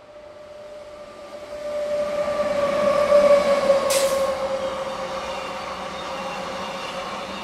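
A train approaching and passing at speed: a steady pitched tone from the locomotive grows louder, then dips slightly in pitch as it goes by. A single sharp crack comes about four seconds in, followed by the steady rush of the passing train.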